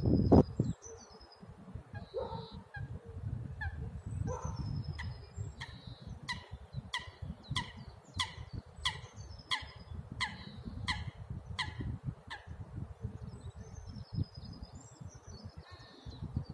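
Strong wind buffeting the microphone with a low rumble, while a bird gives a run of short, harsh calls, more than one a second, for several seconds; small birds chirp faintly near the start and end.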